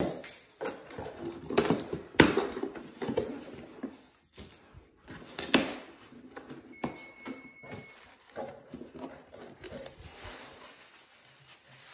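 Cardboard box being opened and its contents handled: flaps knocking and rustling, with the sharpest knocks about two and five and a half seconds in, then quieter rummaging.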